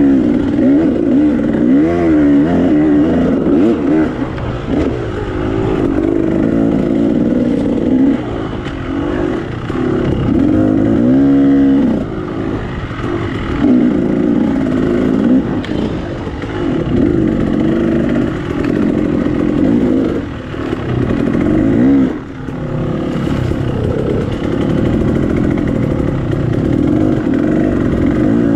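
KTM 300 XC two-stroke single-cylinder dirt bike engine revving up and down over and over as the throttle is worked on and off, with a quick sharp rise and fall about twelve seconds in.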